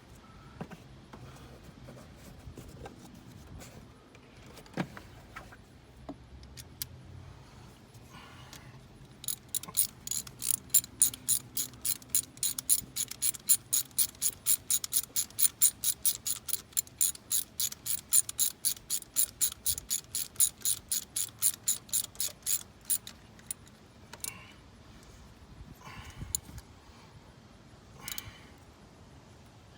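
Ratchet wrench turning a spark plug, clicking in a quick, even run of about four clicks a second that starts about nine seconds in and stops about fourteen seconds later. A few faint knocks of tools before and after.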